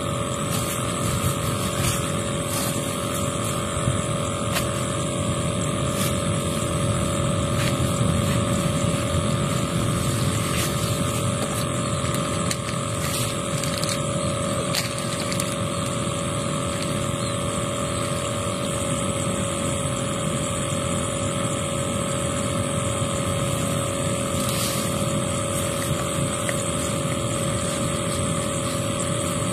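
Steady drone of a distant motor with wind rumbling on the microphone, and a few faint clicks.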